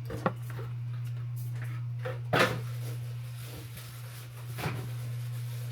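Three short knocks of hard objects being handled, the loudest about two and a half seconds in, over a steady low hum.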